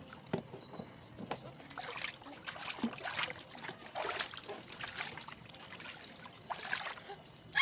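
Water splashing and sloshing in a large plastic bin as people move about in it, in irregular swishes with small knocks.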